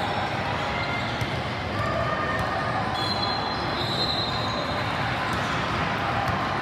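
Basketball players' sneakers squeaking on the court in short high squeals, one longer near the middle, over a steady din of gym and crowd noise.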